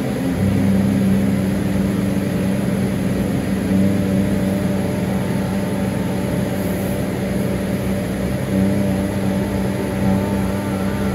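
Steady engine drone with a strong low hum and its overtones.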